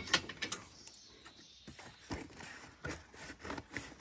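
Cardboard box being pulled open and torn by hand: irregular crackles, scrapes and knocks of the flaps being bent back.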